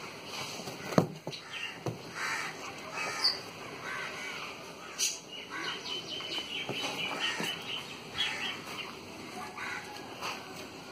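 Desi chickens clucking and calling in short repeated notes, with a couple of sharp knocks about a second in.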